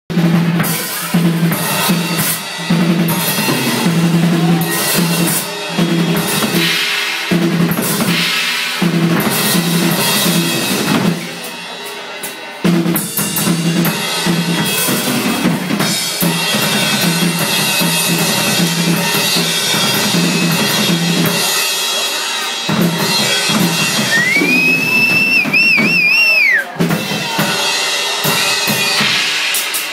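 Live heavy-metal band playing a loud intro led by the drum kit, with bass drum and snare hits over a steady low note. Near the end a high wavering note is held for about two seconds.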